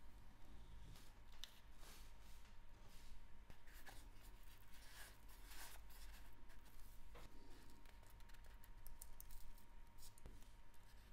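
Faint, scattered small clicks and light scrapes of watchmaker's tools against a wristwatch case and movement, as the movement is taken out of the case, the clicks bunching together near the end.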